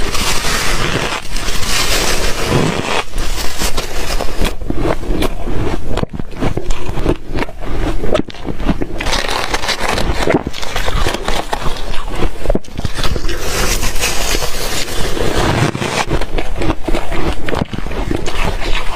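Ice being chewed and crunched close to the microphone: loud, continuous crunching full of sharp cracks, with no pause.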